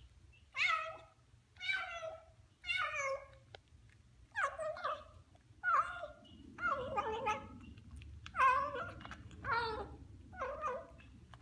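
Ginger kitten meowing over and over as it eats from its food bowl, about one short call a second, nine in all.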